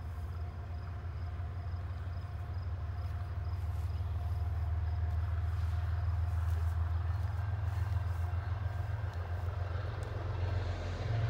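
Low, steady rumble of an approaching freight train's diesel locomotive, growing slowly louder, with crickets chirping faintly.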